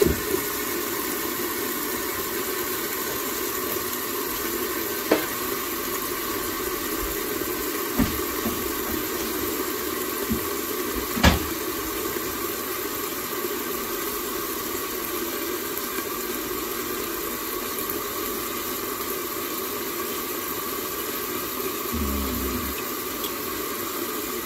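Cabbage and pork stir-fry steaming and sizzling under a glass lid in a skillet on a gas burner: a steady hiss. The lid is set on with a light clack at the start, and there are a few sharp clicks in the middle.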